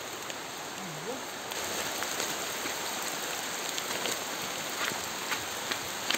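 Steady rain falling, with scattered close drops ticking; the hiss grows louder about one and a half seconds in.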